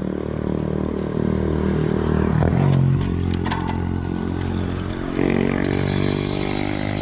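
An engine running steadily, its pitch shifting about two and a half seconds in and again about five seconds in, with a few light clicks near the start.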